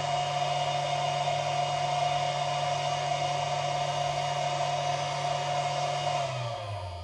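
A small electric motor with a fan runs steadily with a whine and a low hum. About six seconds in it winds down, its pitch falling as it slows.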